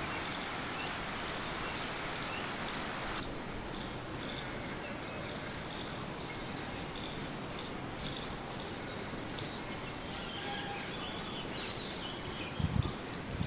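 Steady outdoor background noise with faint high chirps scattered through it, changing abruptly about three seconds in; a few low thumps near the end.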